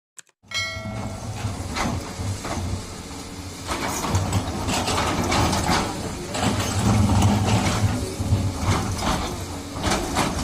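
Doosan DX200A excavator at work: its diesel engine running under load with repeated metal clanks and knocks, cutting in abruptly about half a second in.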